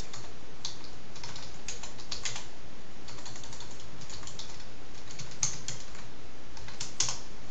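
Typing on a computer keyboard: irregular runs of key clicks over a steady hiss.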